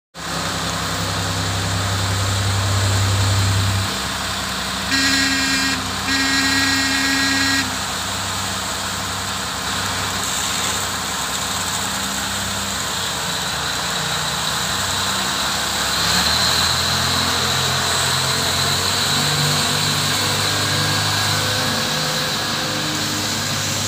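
Komatsu HD785-7 haul truck's 12-cylinder diesel engine (SAA12V140E-3) running at idle, with two horn blasts about five seconds in, a short one followed by a longer one. From about sixteen seconds in the engine note shifts, stepping up and down in pitch.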